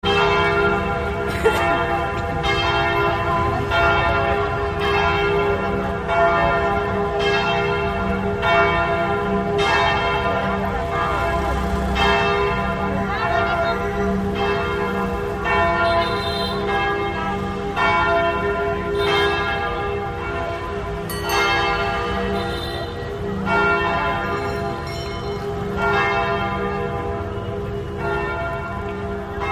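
St. Joseph's Cathedral church bells ringing in a long, steady peal, a stroke about every second and a bit, each stroke ringing on into the next over a sustained low hum.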